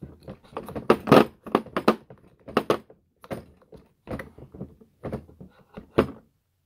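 Steel torque wrench knocking and clattering against its blow-molded plastic case as it is pushed down into a recess it no longer fits: a string of irregular sharp knocks, the loudest about a second in and another near the end.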